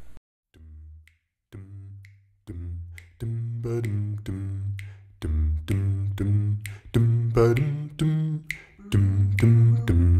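A cappella vocal music: a deep bass voice singing short, low notes in a bouncing rhythm, with sharp vocal-percussion clicks between them. It starts faint and fills out after a few seconds.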